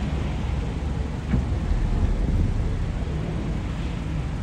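Low, steady rumble of cars idling close by, with one short click a little over a second in.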